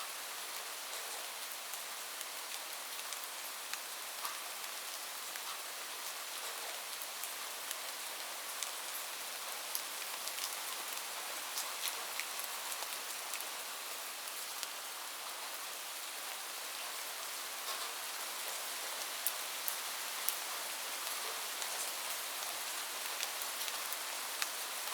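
Light rain falling steadily, an even hiss with many small scattered drop ticks.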